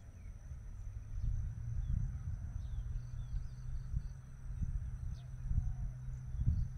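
Uneven low rumble of wind on the microphone, with a steady high insect drone and a few short bird chirps over it.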